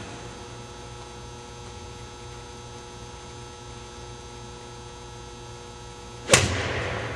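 A golf club striking a ball off a hitting mat once, near the end: a single sharp crack with a short echoing decay. A steady electrical hum runs underneath.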